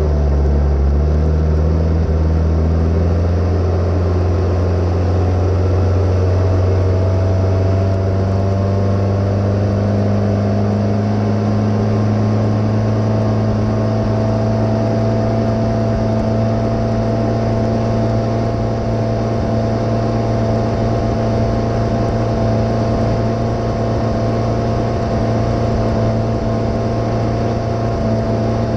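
Glastron 1700 runabout's engine running under way, its pitch rising over the first several seconds as the boat speeds up, then holding steady at cruising speed, with a steady rush of wind and water over it.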